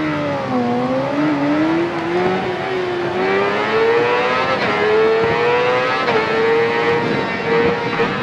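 Sportbike engine heard from the rider's seat, pulling hard with its note climbing through the gears. The pitch drops briefly at each shift, near the start and again about four and a half and six seconds in.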